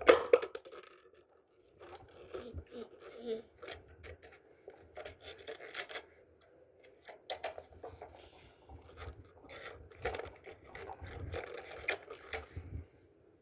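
Scissors cutting a thin plastic water bottle: a loud crackle of the squeezed plastic right at the start, then irregular short snips, scrapes and crinkles as the bottle is turned and cut.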